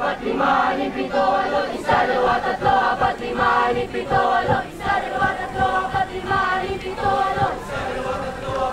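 A group of young voices chanting a sung drill cadence in unison, in short rhythmic phrases, with regular low thumps beneath them.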